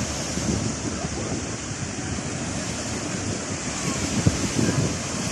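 Sea surf washing steadily onto a beach, with wind buffeting the microphone in low gusts, strongest about four seconds in.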